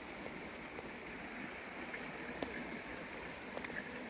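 Steady rushing of water from a small waterfall spilling into a pond, with a few faint clicks.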